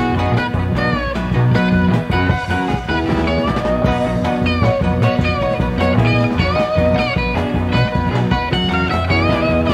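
Psychedelic rock band playing: an electric lead guitar bends and slides between notes over a bass line and a steady drum beat.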